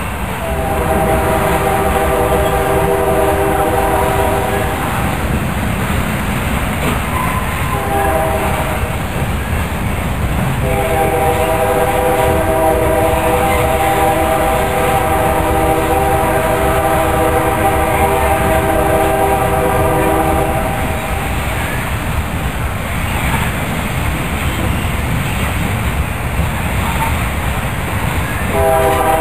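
Freight train rolling past with steady rumble and wheel clatter, while a diesel locomotive's multi-chime air horn sounds a long blast, a short one, then a drawn-out long blast of about ten seconds, with another starting near the end.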